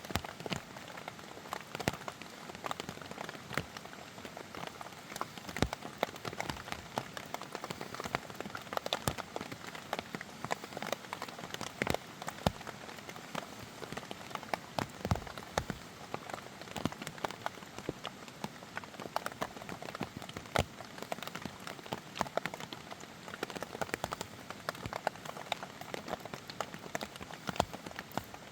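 Steady rain falling, a dense patter of irregular drop impacts.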